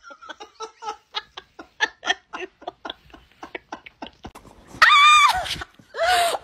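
Rapid, breathy laughter in quick pulses, about five a second. About five seconds in, a loud high-pitched wavering cry, and another begins near the end.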